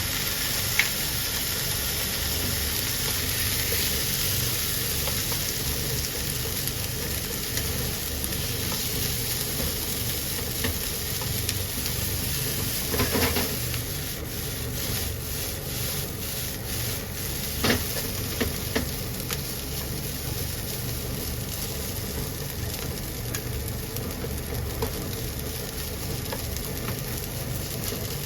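Egg-less green-onion fried rice sizzling steadily in hot oil in a pan as it is stir-fried, with a few knocks and scrapes against the pan around the middle.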